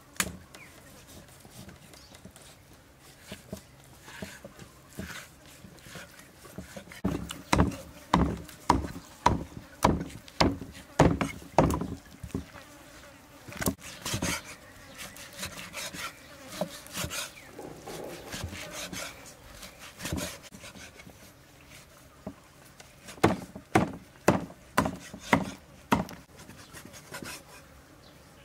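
Knife chopping on a wooden cutting board: runs of sharp knocks, about two a second, broken by pauses with quieter scraping and rubbing.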